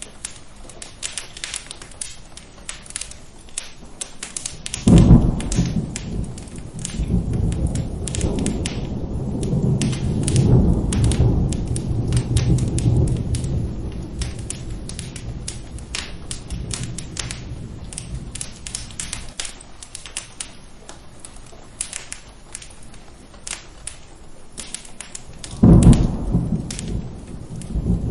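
Rain and thunder over a crackling fire. A sharp thunderclap about five seconds in rolls into a low rumble lasting about ten seconds, and a second clap comes near the end. Under it all run steady rain and a constant scatter of crackles.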